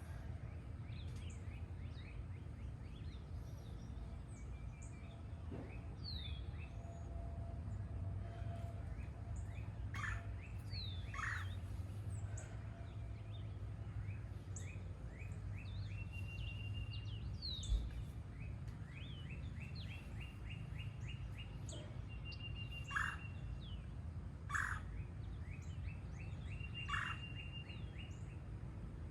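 A chorus of wild birds singing and calling, with rapid repeated chirps and trills and a few louder short calls, over a steady low background rumble. There is a single brief low thump about two-thirds of the way through.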